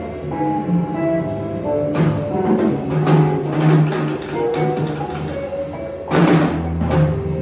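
Live instrumental music from electric guitar, drum kit and synthesizer, with sustained pitched notes over light, scattered percussion and a louder crash from the kit about six seconds in.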